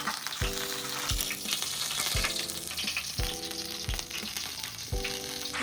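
Meat sizzling as it cooks on a barbecue grill, a steady crackling hiss. Background music with a steady beat about once a second plays underneath.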